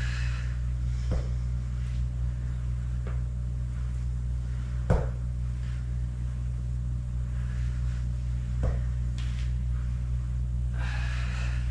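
Steady low hum with a few faint, short knocks scattered through it, and soft breathy exhales near the start and near the end.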